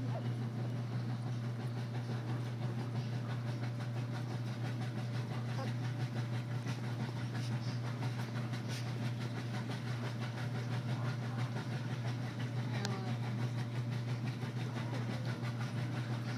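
A steady low hum, with faint, brief high squeaks from three-week-old puppies now and then.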